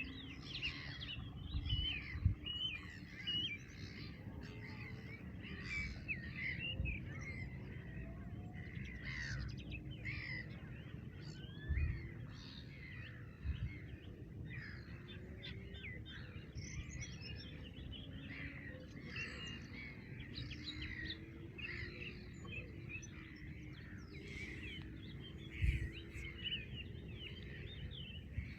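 A chorus of small songbirds, many short chirps and warbling phrases overlapping without pause. Underneath runs a steady low rumble, with a few soft thumps.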